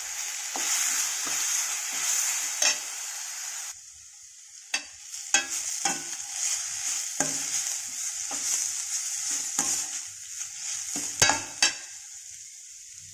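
Grated Indian gooseberry, onions and dried red chillies sizzling in oil in a stainless steel kadai while being sautéed, a slotted steel spoon scraping and clinking against the pan. The sizzle is steady, with scattered sharp clinks, two of them close together near the end.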